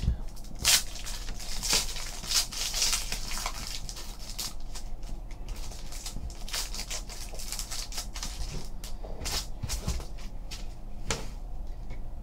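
Foil trading-card pack wrapper being peeled and torn open by hand: an irregular run of crinkles and crackles, busiest in the first half.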